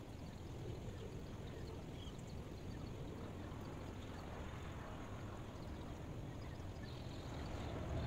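Steady low rushing noise from a white-noise ambience track, swelling slightly near the end.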